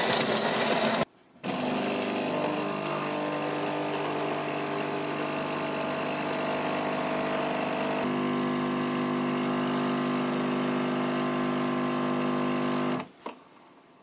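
De'Longhi Magnifica Evo bean-to-cup coffee machine brewing a cappuccino: after a louder first second and a short break, the machine hums steadily while espresso pours onto the milk in the glass. The hum changes note a little past halfway and stops about a second before the end, as the brew finishes.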